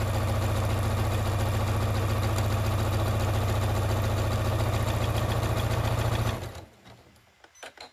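Electric sewing machine running at a steady speed, stitching through strips of fabric with a fast, even rhythm of needle strokes. It stops abruptly about six and a half seconds in, followed by a few light clicks.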